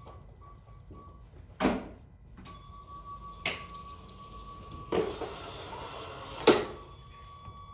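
Small competition robot running on its own: a thin, steady electric-motor whine that comes and goes, a rushing stretch of motor noise in the second half, and four sharp knocks from the robot's frame and mechanism about a second and a half apart.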